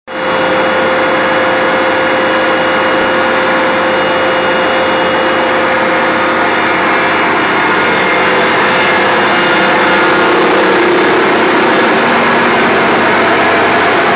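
Case 2390 tractor's diesel engine running steadily under load, driving a PTO silage blower: a loud, even rush with a steady whine as chopped corn silage is fed in and blown up into the silo.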